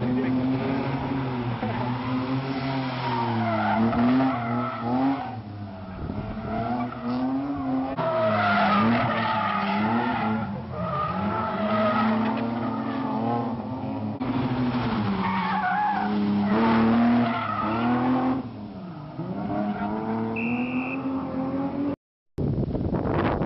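Rally car engines revving hard, pitch swinging up and down with the throttle as the cars drift, with tyres skidding on tarmac. The sound cuts between several clips, and near the end drops out briefly before a noisier stretch.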